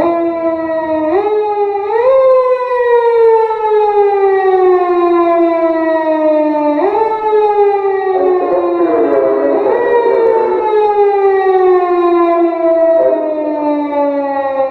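Japanese unmarked police car's electronic siren wailing: quick rises in pitch, each followed by a long, slow fall. A second siren tone overlaps it for a few seconds in the middle.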